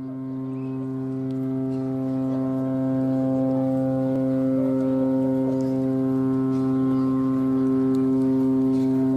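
A long, steady low horn-like tone held at one pitch, swelling up over the first few seconds and then sustained.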